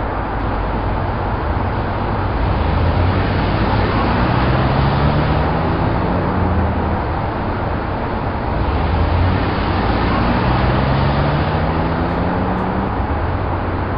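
Car engine heard from inside the cabin, pulling away from a standstill: its pitch rises steadily, drops back at a gear change, then rises again, over constant road and cabin noise.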